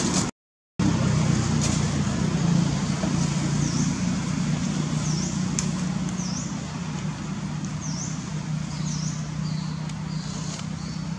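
Outdoor ambience: a steady low rumble of distant road traffic, cutting out for about half a second just after the start. Through the middle, short high bird chirps repeat about once a second.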